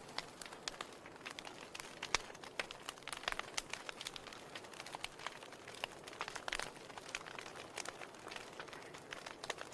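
Firewood burning in a fireplace, crackling: irregular sharp pops and snaps, several a second, over a steady soft hiss.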